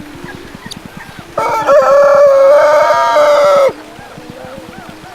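Rooster crowing once: a single loud, held call of a little over two seconds that dips in pitch just as it cuts off.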